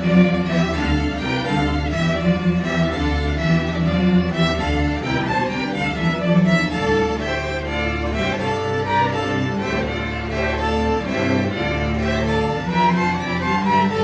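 Instrumental music with a bowed-string sound: a slow melody over long held low notes, with several notes sounding at once.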